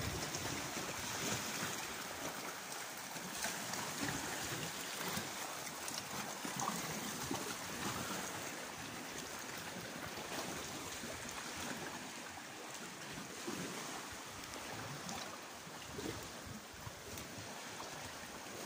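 Small sea waves washing and lapping against rocks along the shore, with wind gusting on the microphone.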